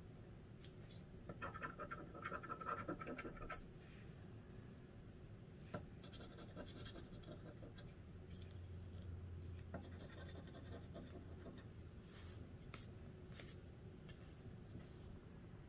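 Scratch-off lottery ticket being scraped with a handheld scratcher: faint rasping, densest from about one to three and a half seconds in, then lighter short bouts of scratching and a few sharp ticks near the end.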